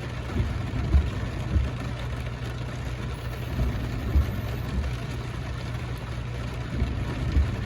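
Pickup truck engine idling steadily under an even hiss of rain, with a few soft low thumps.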